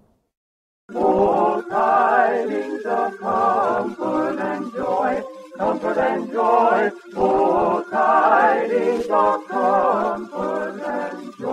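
A cappella singing: voices with vibrato, no instruments, in short phrases with brief breaks between them, starting about a second in after a moment of silence.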